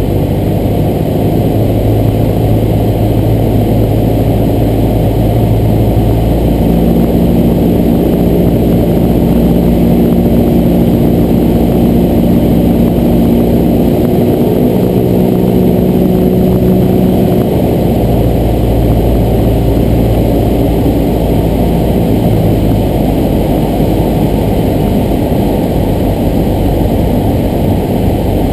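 Cessna 172 single-engine propeller plane in flight, heard from inside the cabin: a loud, steady drone of engine, propeller and airflow. The engine note changes a little for several seconds midway, then settles back.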